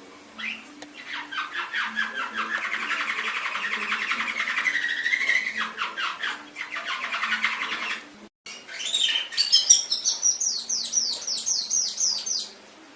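Domestic canary singing: a long fast trill of rapid notes for about eight seconds. After a brief break comes a higher phrase of quick repeated down-sweeping notes, which stops near the end.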